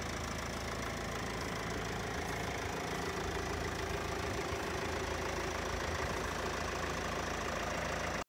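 Mercedes-Benz Vito 111 CDI van's four-cylinder diesel engine idling steadily, heard from outside the van. It cuts off suddenly at the end.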